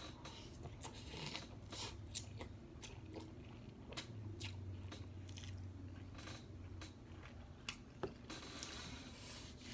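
A person biting and chewing crunchy food, with irregular faint crunches and a few sharper cracks.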